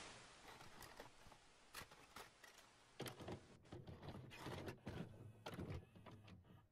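Faint videocassette recorder mechanism sounds: a hiss with scattered clicks, then from about three seconds in a run of mechanical clicks and clunks over a low hum, as a VHS tape is loaded and set to play.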